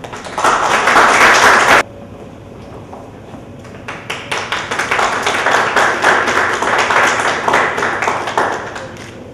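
Audience applause with separate claps heard. A first burst cuts off abruptly just under two seconds in, and the applause starts again about four seconds in.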